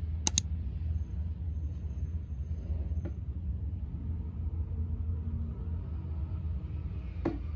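Light fingertip taps on an iPad touchscreen: a quick double tap just after the start and another tap near the end, over a steady low hum.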